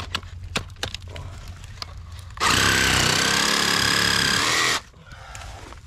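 Cordless power saw cutting into a buried water line: a loud, steady motor whine for a little over two seconds, starting and stopping abruptly. A few light knocks and scrapes come before it.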